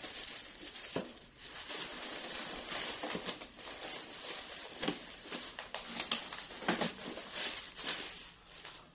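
Clear plastic wrapping sheet crinkling and rustling in irregular crackles as it is pulled about and cut open by hand.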